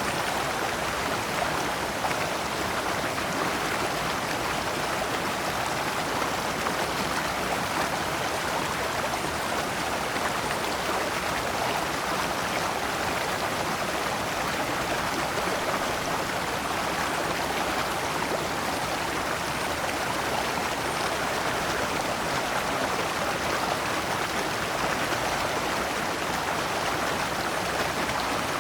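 Shallow rocky stream flowing over stones in small cascades, a steady even rush of water.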